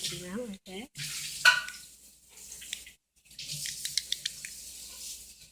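Fidget cube being handled: a run of quick small clicks and rustling over a hiss, after a brief wordless voice in the first second.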